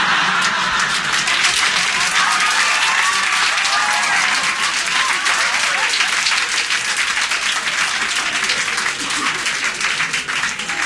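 Audience applauding: dense, sustained clapping that eases off near the end.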